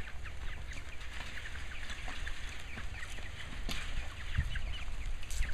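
Hens clucking with many short calls as their wheeled chicken tractor is pulled slowly over gravel, a steady low rumble underneath.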